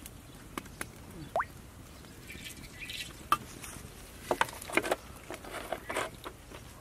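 Liquid poured into a hot black iron kadai, crackling and spitting in scattered sharp pops, busiest about four to six seconds in.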